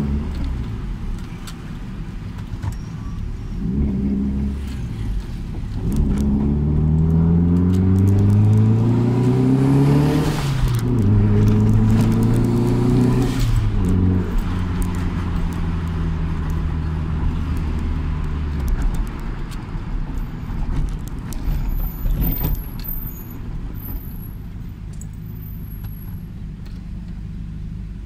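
Toyota Celica ST205's turbocharged 2.0-litre four-cylinder engine, heard from inside the cabin on its newly repaired exhaust. It pulls up in pitch from about six seconds in, drops sharply as it shifts up, and pulls again. It then eases off to a steady lower note and settles into a quieter drone for the last several seconds.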